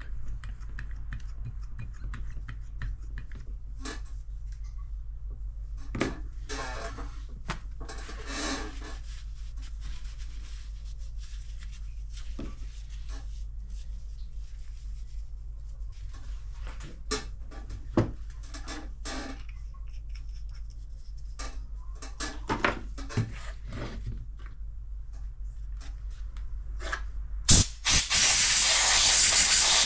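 Handling noise from the opened Bosch GST 18V-LI cordless jigsaw: scattered clicks, taps and rustles of its plastic housing and internal parts being wiped and moved, over a steady low hum. A loud steady hiss starts about two seconds before the end.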